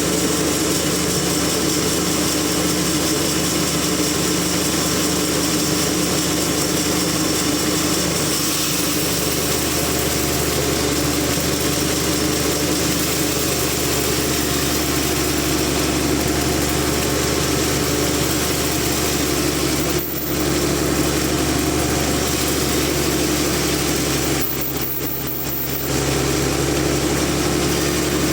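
Big sawmill machine running steadily with a continuous engine drone. The sound shifts about eight seconds in and dips briefly twice in the second half.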